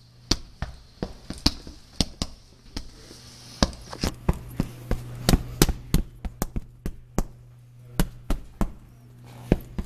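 A quick, irregular series of sharp taps and knocks, about three a second and varying in loudness, over a steady low hum.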